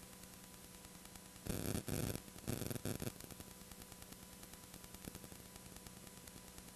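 Steady hiss and faint hum of analogue VHS tape playback with no programme sound, broken by three short, loud bursts of noise about a second and a half to three seconds in.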